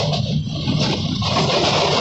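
Train running along the track: a steady, loud rumble heard from on board.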